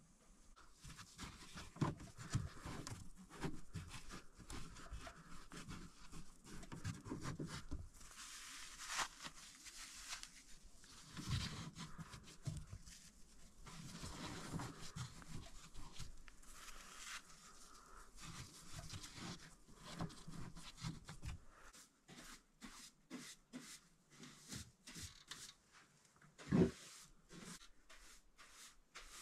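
Rock wool insulation being torn and pressed by a gloved hand into a gap around cables: faint, irregular rustling and scratching with scattered light knocks, and a louder low thud near the end.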